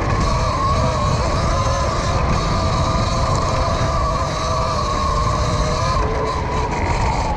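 Electric motor of an E-Ride Pro SS electric dirt bike whining steadily under way off-road, with wind rumble on the microphone.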